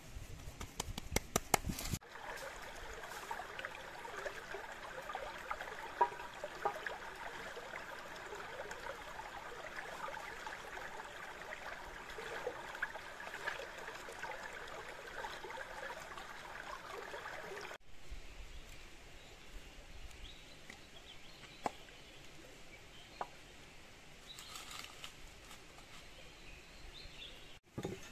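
A shallow stream running over rocks, a steady babble and trickle of water that fades to a fainter trickle after a cut about two-thirds of the way through. It opens with a couple of seconds of wet squishing and clicking from a hand mixing minced chicken in a wooden bowl.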